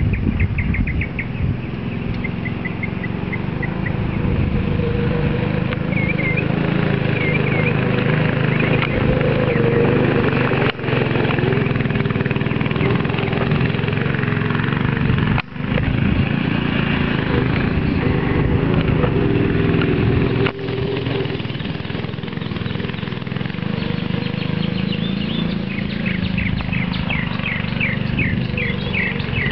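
Go-kart's small engine running as the kart drives over grass, its note wavering up and down. Birds chirp briefly near the start and again near the end.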